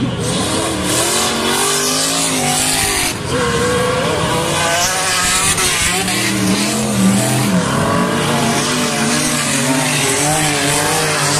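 Several stock car engines racing on a dirt track. Their pitch rises and falls as the cars accelerate, lift off and pass in a pack.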